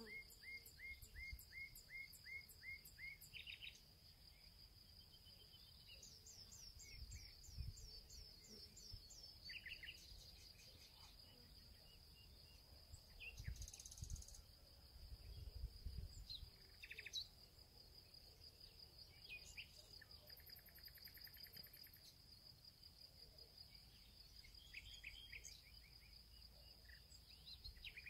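Faint outdoor summer ambience: an insect's continuous high, steady trill, with scattered birdsong over it. The birdsong is a run of quick repeated notes at the start, then a series of falling whistles a few seconds in, and more short calls later.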